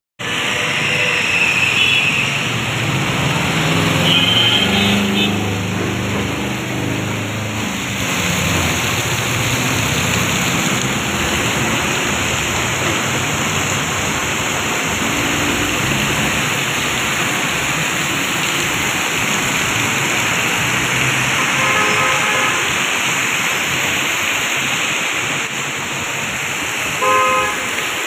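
Heavy rain pouring steadily onto a road, with vehicles driving through it on the wet surface. Vehicle horns honk several times, early on and twice near the end.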